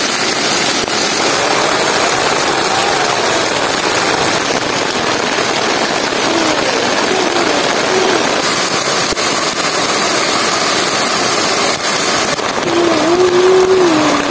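Heavy rain pouring steadily, a dense even hiss. A faint wavering tone rises and falls in the background around the middle and again near the end.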